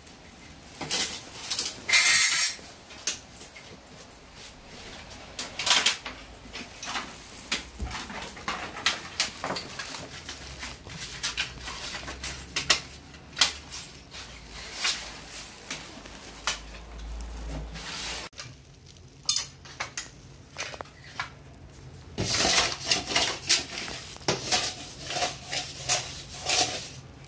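Metal drawer runners and cabinet parts being handled: repeated clinks, clatters and knocks of metal on metal and on the cabinet base, with a quick run of clattering near the end.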